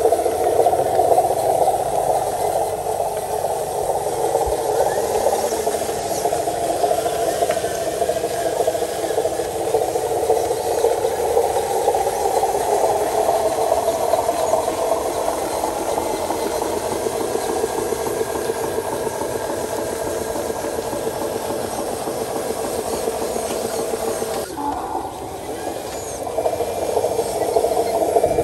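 Radio-controlled model truck's drive running steadily as it crawls over rough ground, with rattling, dipping briefly near the end.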